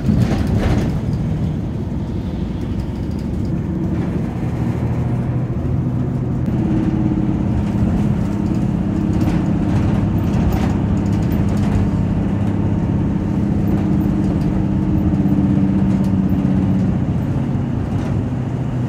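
Road vehicle's engine and tyres heard from inside while driving, a steady low drone with faint light rattles now and then.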